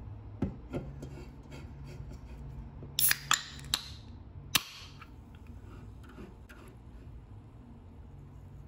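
A 12 oz aluminium can of carbonated coconut soda being opened: light taps of handling, then the pull tab cracks open with a short fizzing hiss about three seconds in, and a sharp click of the tab a second or so later. A low steady hum sits underneath.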